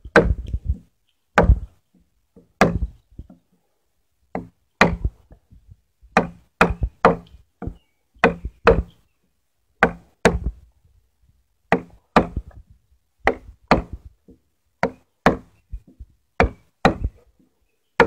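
Chisel being struck to chop and clean up the corner of a white pine tenon: a string of sharp wooden knocks, about one or two a second, often in quick pairs.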